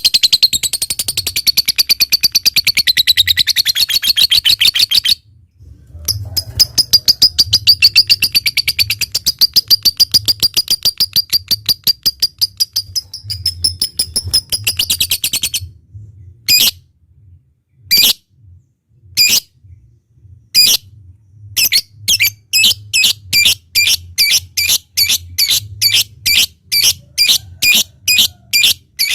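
Lovebird (fighter type) singing loudly. First comes a long, fast, rattling chattering trill, the ngekek, broken once by a brief silence. Then come single sharp chirps, which quicken near the end into a steady run of repeated chirps, the ngetik.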